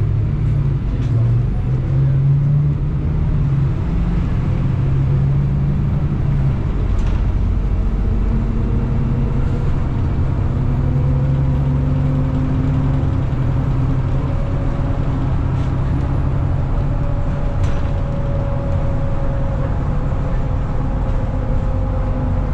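Inside a moving MAZ-103 city bus: the engine running with steady road and tyre noise. A whine rises slowly in pitch from about a third of the way in, and a few faint rattles sound.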